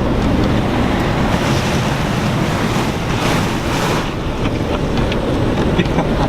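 A Jeep ploughing through floodwater, with water rushing and splashing around it, and strong wind buffeting the microphone.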